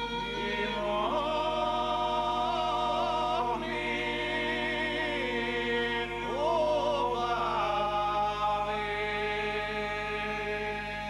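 Men's voices singing a slow Macedonian folk song in long held notes that slide from one pitch to the next, with instrumental accompaniment.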